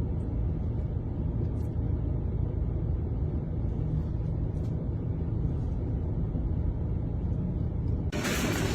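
A steady low rumble with a few faint scattered clicks.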